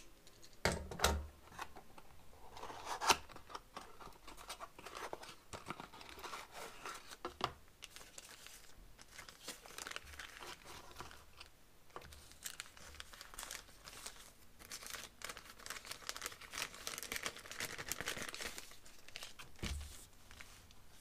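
Cardboard packaging being opened and a clear plastic bag crinkling as hands handle it, with scattered clicks and one sharper knock about three seconds in.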